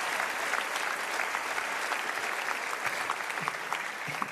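Large audience applauding: many hands clapping in a dense, steady clatter that eases a little near the end.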